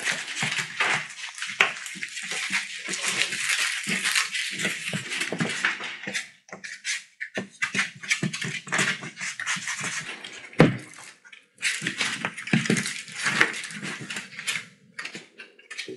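Collie puppies scuffling and wrestling on a hard floor: a busy patter of claws clicking and scrabbling, with short scrapes and knocks.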